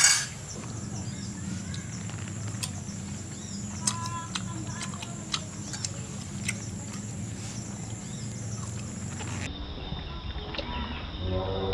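Outdoor ambience with a steady high insect trill and scattered light clicks of forks on glass plates, with a short chirp about four seconds in. Music starts near the end.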